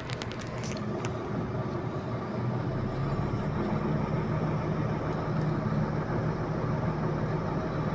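Iveco boom truck's diesel engine running as the truck drives slowly, heard from inside the cab: a steady low drone that grows a little louder about two to three seconds in, with a few sharp clicks in the first second.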